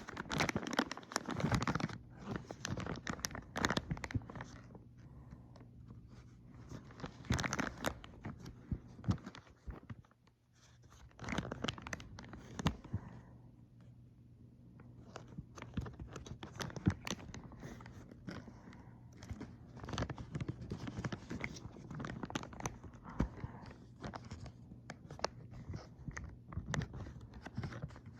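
Plastic wrapping crinkling and tearing in irregular crackling bursts as a Happy Meal toy package is handled and opened, over a steady low hum.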